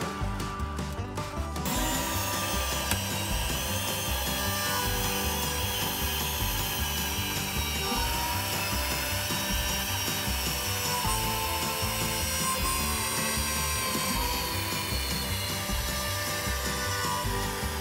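Background music with a steady beat, over woodworking tool noise.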